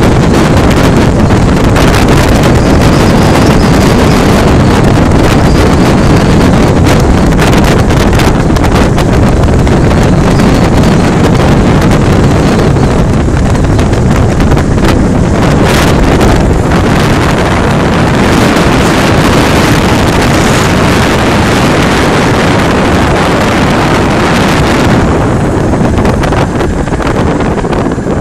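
A Bullnose Morris open tourer driving along, its engine running under heavy wind buffeting on the microphone. The wind noise drops off in the last few seconds as the car slows.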